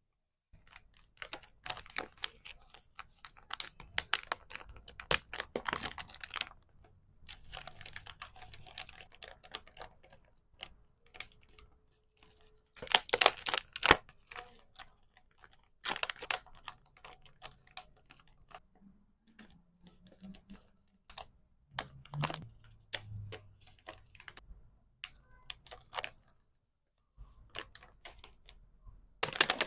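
Hands packing small items: quick clusters of clicks and taps from small plastic pieces, mixed with crinkling of wrappers. The loudest burst comes about halfway through, and there is a short pause near the end.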